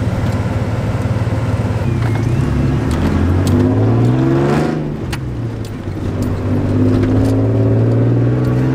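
Vehicle engine heard from inside the cabin while driving off. It pulls up in pitch, drops at a gear change about five seconds in, then climbs again.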